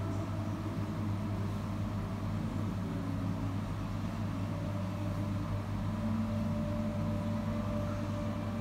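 Steady low hum of running commercial-kitchen machinery, with faint tones drifting above it.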